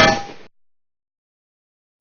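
Bullet striking metal: a sharp metallic clang with a bright ringing tail that dies away within about half a second.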